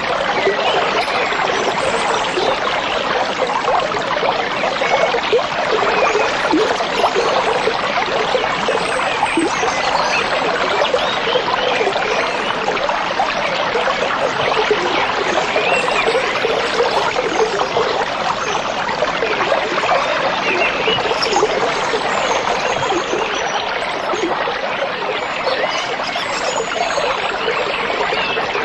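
Stream babbling, water steadily trickling and splashing over stones.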